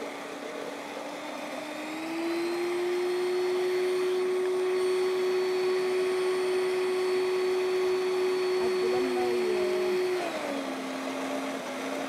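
Countertop electric blender running, beating a liquid mix of oil, milk and sugar until the sugar dissolves. Its steady hum rises in pitch and gets louder about two seconds in, holds, then drops back near the end.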